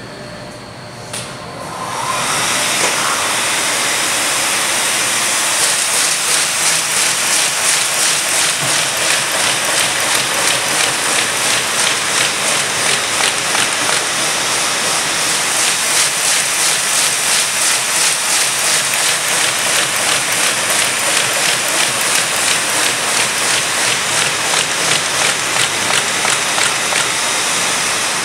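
MBO T49 paper folder starting up about two seconds in, then running with its rollers and feed belts making a loud, steady mechanical clatter with a fast, regular pulse as sheets feed through.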